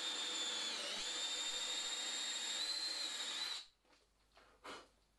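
DeWalt 18V XR cordless drill running steadily with a high whine as a 13 mm bit bores a starter hole through a steel guide bush into plywood; the pitch sags briefly about a second in, and the drill stops after about three and a half seconds, followed by a couple of faint knocks.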